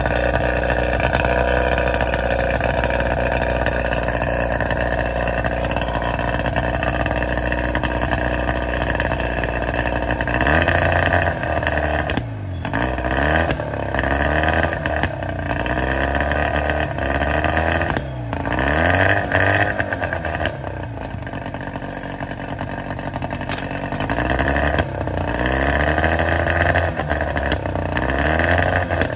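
Hangkai 18 hp two-stroke outboard motor running out of the water on flushing muffs, freshly started for its break-in. It runs steadily for about ten seconds, then the throttle is opened and closed again and again, the engine revving up and dropping back several times.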